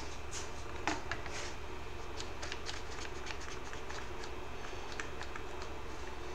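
Small irregular clicks and taps of hands handling clamps on a freshly glued small wooden piece, over a steady low hum.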